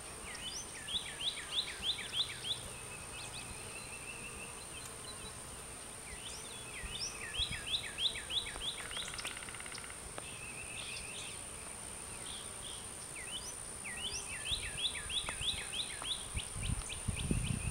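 A songbird singing three phrases, each a quick run of about six downward-slurred whistles, with a softer trill between them. A steady high-pitched whine runs underneath, and a low rumble comes near the end.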